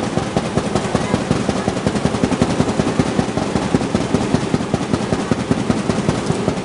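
Loud, fast, driving drumbeats at about four to five hits a second, the rapid percussion of a cheerdance routine, heavily distorted in the recording.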